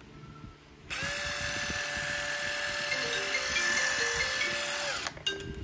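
Makita XDT15 18V brushless impact driver running with no load: the motor spins up about a second in, runs steadily for about four seconds without hammering, and winds down near the end.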